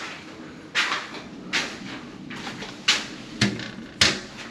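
A series of irregular sharp knocks and thumps, about six in four seconds; the last two have a deeper thud.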